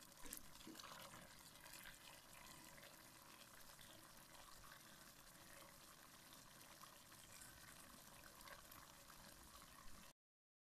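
Faint bubbling of a pot of unripe plantain and vegetable stew simmering, with scattered small pops; it cuts off to silence near the end.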